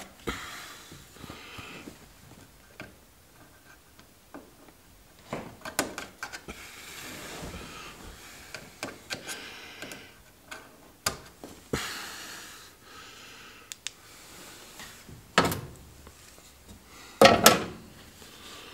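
Headliner cloth being trimmed with scissors and worked into place by hand: soft fabric rustling and scattered small snips and clicks, with two louder bumps near the end.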